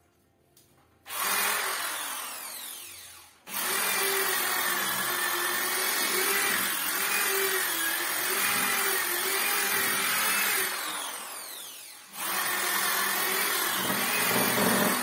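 Electric sander sanding a wooden door: switched on three times in runs of about two, eight and three seconds. Its motor whine wavers in pitch, and it winds down after each stop.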